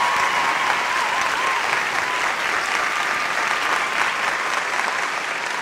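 Audience applause: steady, dense clapping from a large crowd, easing off slightly near the end, with a faint wavering tone running through it.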